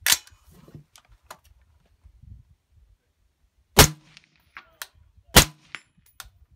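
Suppressed 5.56 AR-15, with a Q Trash Panda suppressor on its 11.5-inch barrel, firing two single shots about a second and a half apart, the first about four seconds in. A sharp click comes right at the start.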